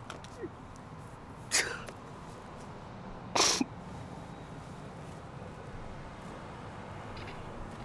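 A man crying: two sharp, breathy sobbing gasps, about two seconds apart, over a steady low background hiss.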